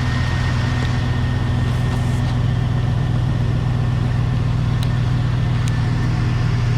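Chevrolet 5.3L LS V8 engine running steadily, a constant low drone at an even speed.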